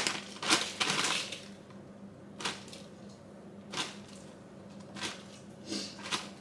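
Dark brown sugar being poured from its packet into a bowl on a kitchen scale: a rustling, crackling pour in the first second or so, then a few separate light clicks and taps as the last bits are added.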